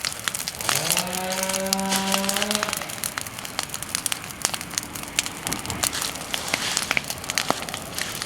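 Burning persimmon wood in a bonfire crackling with many rapid sharp pops. About a second in, a steady low tone with overtones is held for nearly two seconds over the crackle.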